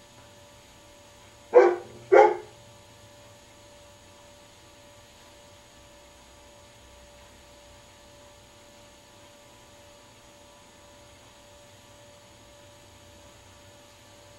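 A dog barking twice in quick succession, about a second and a half in, over a steady electrical hum.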